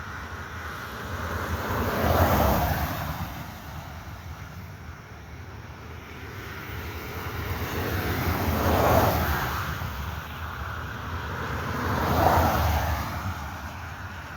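Three road vehicles passing one after another, each swelling and fading away, the loudest about two, nine and twelve seconds in. No horn sounds.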